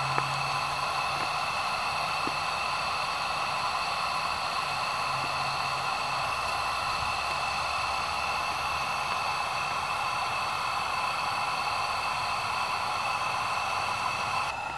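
A steady hiss of background noise with several faint, steady high tones running through it and no distinct knocks or other events.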